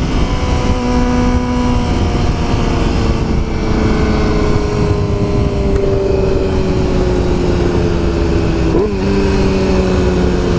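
Yamaha R6 inline-four sport-bike engine running under way, its pitch slowly falling as the bike eases off, with a brief rev blip near the end. Heavy wind and road rush on the helmet microphone.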